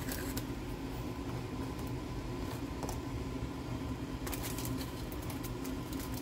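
Steady low background hum, like a fan or appliance, with a few light clicks and rustles as graham crackers are handled and laid into a plastic tub, a small cluster of them a little over four seconds in.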